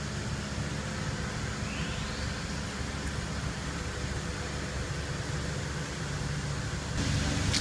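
Steady background hiss with a low hum, the room noise of a large workshop hall, rising slightly near the end. The caulking gun dispensing sealant makes no clear sound of its own.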